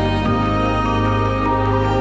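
Background music: slow instrumental chords held steadily, changing chord just after the start.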